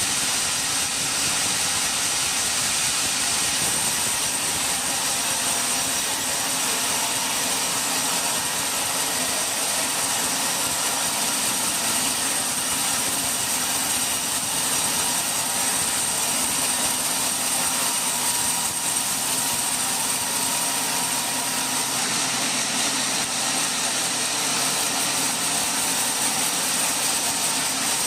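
Sawmill saw running steadily: an even rushing noise with a constant high-pitched whine that does not change.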